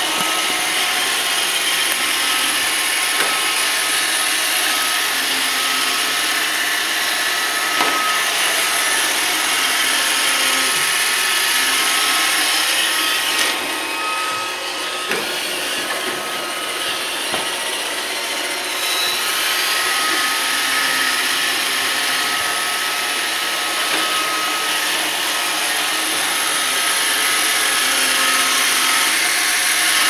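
iRobot Roomba 520 robot vacuum running on a parquet floor: the steady whirring hiss of its vacuum motor and brushes with a faint high whine, broken by a few sharp knocks. It grows a little louder near the end.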